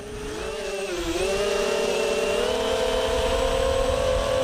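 Whine of an FPV racing quadcopter's Xhover XH2204 2300 kV brushless motors spinning up, fading in at the start. The pitch dips about a second in, then climbs slowly and steadily as the throttle comes up.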